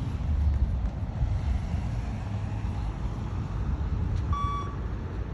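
Beep test (shuttle run) signal: one short electronic beep about four seconds in, marking the end of a 20 m shuttle. Under it is a steady low rumble.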